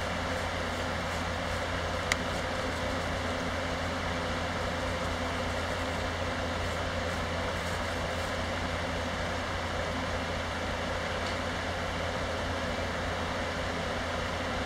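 A steady rushing noise with a low hum and a faint high whine underneath, and one sharp click about two seconds in.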